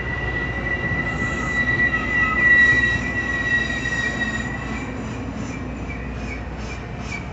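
Metra bilevel commuter cars rolling along the platform at a station, their wheels giving a steady high squeal that fades out about halfway. A rhythmic clicking of the wheels follows, coming a little faster as it goes.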